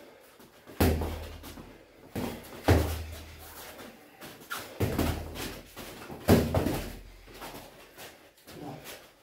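Boxing gloves thudding as punches land in heavyweight sparring: about five solid thumps a second or two apart, with lighter hits and shuffling between, the loudest nearly three seconds in and again past six seconds.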